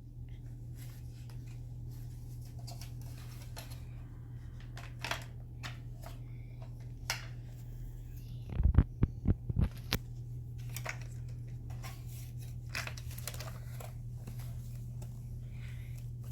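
Plastic toy kitchen pieces being handled and pushed together: scattered light clicks and rustles, with a cluster of louder knocks about nine seconds in, over a steady low hum.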